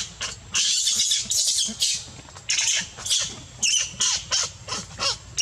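Young macaque screaming with its teeth bared: a fast string of short, shrill squealing cries, about two to three a second, some rising in pitch.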